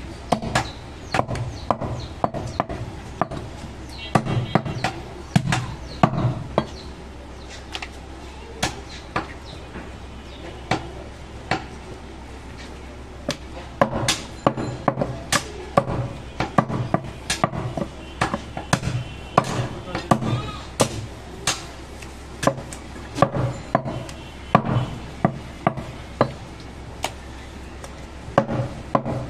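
Heavy butcher's cleaver chopping goat meat on a round wooden stump block: a long series of sharp chops, irregular, with quicker runs of about two a second and short pauses while the meat is repositioned.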